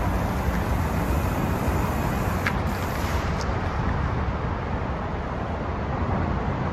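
Steady low rumble with road and wind noise from a moving vehicle, and a brief faint whistle about two and a half seconds in.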